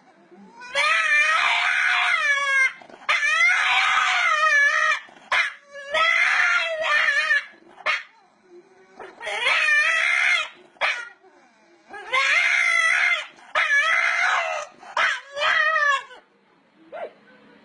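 A dog howling in a run of long, wavering, pitched calls, about six of them with short pauses between, then a few shorter yelps near the end.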